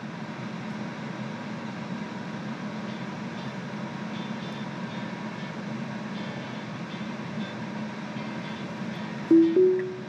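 Steady low hum inside a stationary Tesla's cabin. Near the end the car gives a loud two-note chime, the second note higher.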